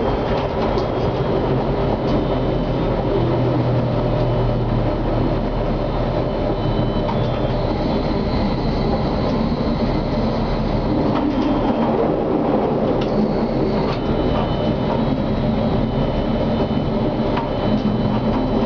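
Konstal 105Na tram running at speed, heard from the driver's cab: a steady rumble of motors and wheels on the rails, with faint high tones and a few clicks as the wheels pass over rail joints.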